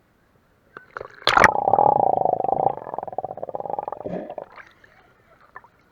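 A splash into seawater, then about three seconds of muffled underwater bubbling and rumbling as the camera goes under the surface, fading out after about four and a half seconds.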